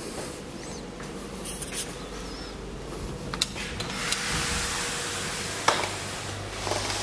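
Indoor room tone with a steady air-conditioner hum, then a louder, steady outdoor hiss from about four seconds in, with a few sharp clicks.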